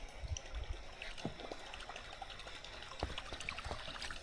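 Quiet trickling and splashing of water, with scattered small ticks and a few soft low thumps.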